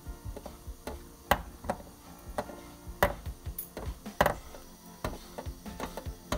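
Silicone spatula scraping and knocking against a nonstick frying pan while stirring a crumbly butter-and-flour roux, with several sharp knocks among quieter irregular scrapes and taps.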